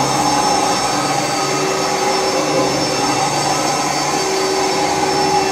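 Oreck upright vacuum cleaner running steadily on carpet, its motor holding an even, high-pitched whine.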